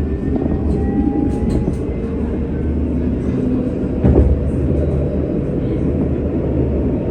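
Tram running on its rails: a steady low rumble with faint whines rising slowly in pitch as it picks up speed, and a single knock about four seconds in.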